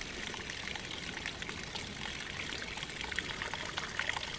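Spring water trickling and splashing steadily from the outflow fed by an old well, with many small droplet splashes.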